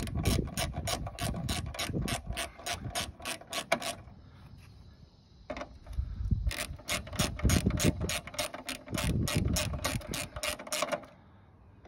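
Small ratchet with an 8mm socket clicking rapidly as it backs out grille bolts, about five clicks a second. It pauses for a second and a half about four seconds in, then clicks again on the next bolt for about five seconds.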